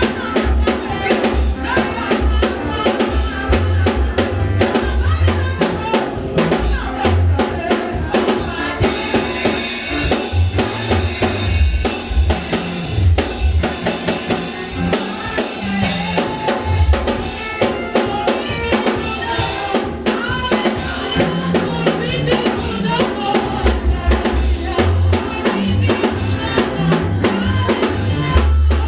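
Church band music with a drum kit keeping a steady beat, with bass drum and snare hits over a moving bass line.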